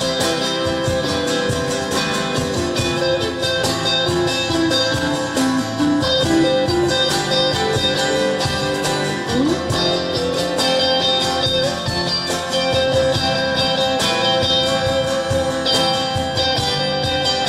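Instrumental break in a worship song, the band playing on with no singing.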